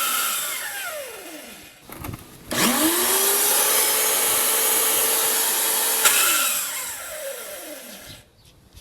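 WAP Excellent pressure washer motor running with no pressure and a very strange noise: it winds down, is started again about two and a half seconds in, runs steadily for a few seconds, then is switched off and spins down. A noise like this is typical of the pump's drive gear having broken or worked loose.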